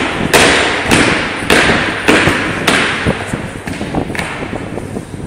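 A drill team stamping their feet in unison on a hard gym floor: five loud stamps a little over half a second apart, then a few weaker ones, each echoing through the large hall.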